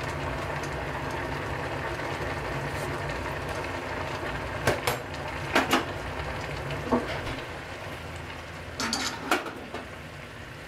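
Steady hiss from a gas stove burner under a simmering saucepan, broken by a few sharp clicks and clinks of kitchenware, including a ceramic bowl being set down near the end.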